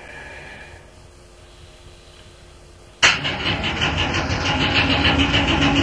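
Former London Underground Standard tube stock electric train: first a faint hum that fades about a second in, then, starting abruptly about halfway through, the train running loud with a fast continuous rattle. A steady low hum joins in near the end.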